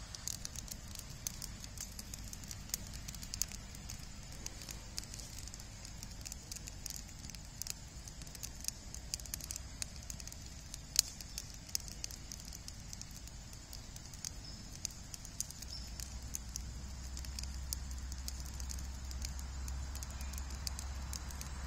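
Stick-and-branch wood fire in a steel fire ring crackling, with many sharp snaps and pops and one louder pop about halfway through. A low rumble rises in the last few seconds.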